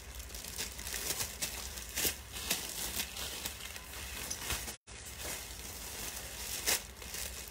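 Rustling and crinkling of plastic-wrapped clothing being rummaged through in search of stock, with scattered short clicks and a brief dropout in the audio near the middle.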